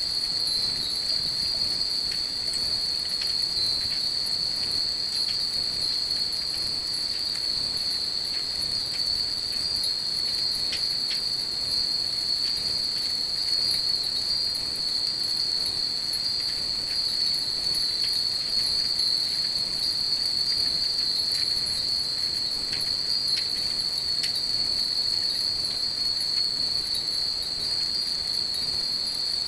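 Many Japanese wind chimes (fūrin) tinkling now and then, light scattered rings, over a steady high-pitched whine that runs unchanged throughout.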